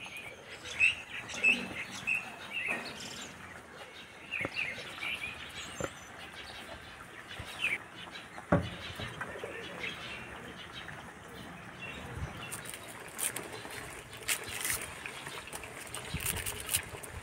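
Small birds chirping now and then, with one sharp knock about eight and a half seconds in. Near the end there are dry, crisp crackles as the papery skin of a red onion is peeled with a knife.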